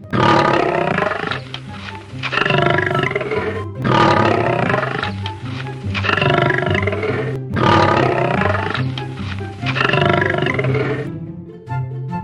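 A lion roaring, about six long roars in a row, over background music with a steady repeating bass line. The roars stop about a second before the end while the music goes on.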